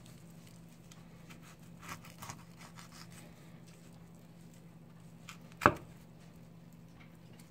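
Knife cutting meat off a bluefin tuna collar on a cutting board: small scrapes and clicks of the blade, then one sharp knock of the knife a little over five seconds in.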